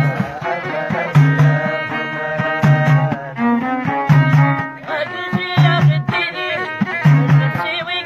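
Amazigh folk music: a lotar (skin-topped lute) and a violin played upright on the knee carry the melody over bendir frame drums beating a steady, repeating rhythm.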